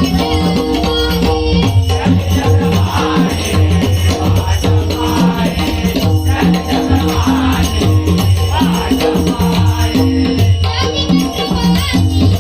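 Devotional abhang music with a steady repeating rhythm and rattling percussion.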